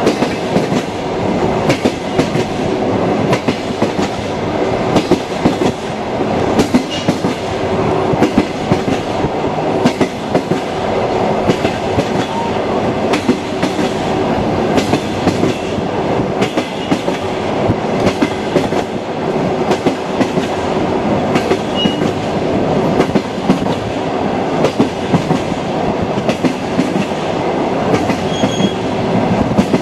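Train wheels clattering over rail joints as the train runs between stations, over a continuous rumble of the train in motion.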